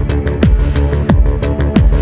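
Electronic background music with a steady beat: a deep drum hit that drops in pitch about every two-thirds of a second, quick high ticks between the hits, and held synth notes.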